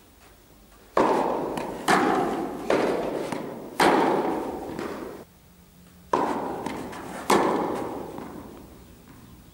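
Tennis ball impacts: about six sharp racket strikes and ball bounces, each followed by a long echo that dies away in the large indoor tennis hall.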